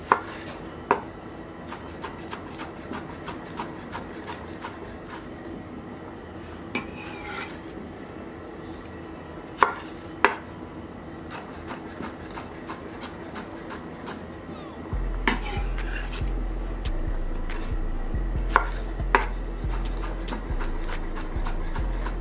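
Chef's knife chopping peeled cucumber on an end-grain wooden cutting board: runs of quick light taps of the blade on the wood, with a few louder single knocks.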